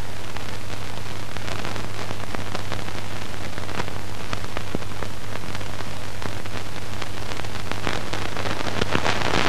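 Steady hiss with scattered faint crackles over a constant low hum.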